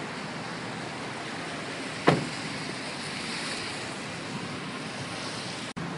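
Steady background noise, broken by a single sharp bang about two seconds in.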